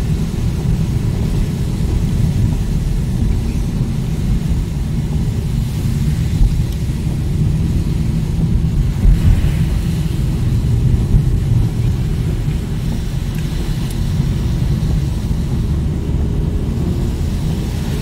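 Steady low rumble of a car driving on a wet road, engine and tyre noise heard from inside the cabin.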